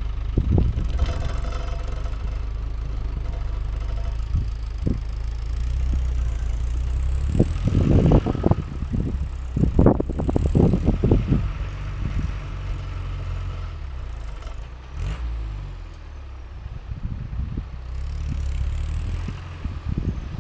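Land Rover Defender 90 engine running low and steady while driving an off-road trail, with a burst of knocks and clunks about halfway through as the truck jolts over rough ground.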